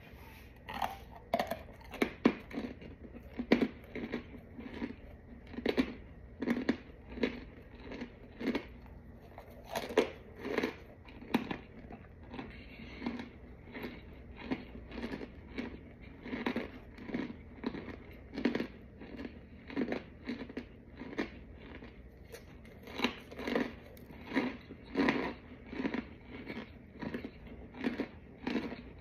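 Person biting and chewing chalky white chunks of packed powder, a crisp crunch about twice a second.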